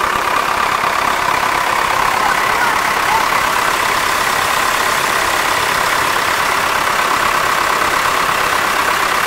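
MTZ-80 tractor's four-cylinder diesel engine idling steadily, heard close up at the engine bay.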